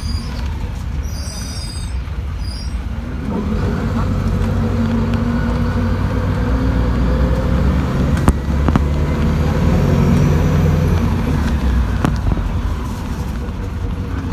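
City bus running along the road, heard from inside the cabin: a steady low engine rumble with road noise, getting louder about three and a half seconds in as the bus picks up speed. A sharp click about eight seconds in.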